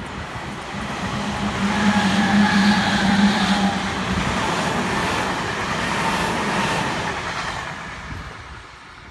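Meitetsu express train of 3500 series and 3300 series electric cars running past at speed, a loud rumble of wheels on rail with a steady humming tone. It builds to its loudest about two to three seconds in, holds, then fades as the train moves off.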